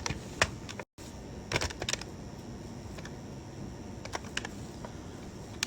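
Keys on a calculator being tapped in a few short, irregular runs of clicks while prices are worked out.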